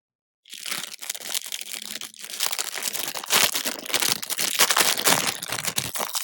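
Plastic packaging being crinkled and torn open by hand: a continuous, loud crackling rustle that starts about half a second in.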